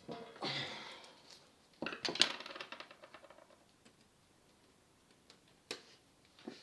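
Small metal parts and hand tools clinking and scraping while an electronics unit is being dismantled. There is a short scrape about half a second in, then a cluster of sharp clinks with a little ringing around two seconds in, and a single click near the end.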